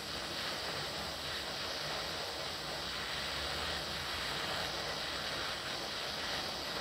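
Handheld butane torch burning with a steady hiss, its flame heating a screw set with Loctite threadlocker to loosen it.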